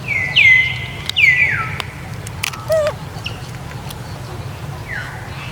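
Young macaques giving several short, high-pitched calls in a row, each dropping sharply in pitch.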